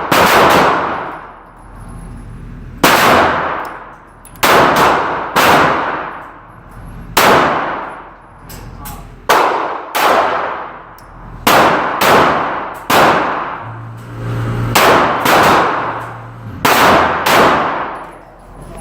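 A series of about a dozen gunshots at a shooting range, spaced roughly one to two seconds apart, each sharp crack followed by a long metallic-sounding ring and echo.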